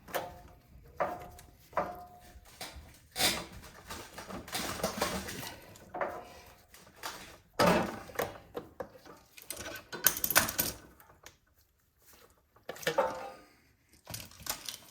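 Tools and small metal parts clicking, clinking and rattling in irregular bursts with short quiet gaps, as the fuel line is worked off a snowblower's carburetor.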